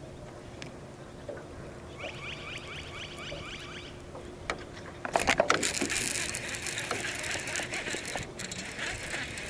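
Water splashing loudly from about five seconds in, a hooked bass thrashing at the surface before it comes off. Before it, a short run of quick repeated chirps.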